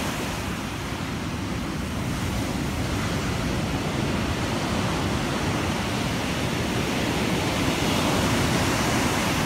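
Rough sea surf breaking and washing up a sandy beach in foamy water: a steady rush of waves that grows a little louder near the end.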